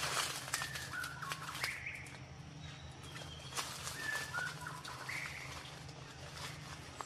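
Several short bird chirps, each a quick rising or falling note, over crackling rustles in dry leaf litter that are busiest in the first second.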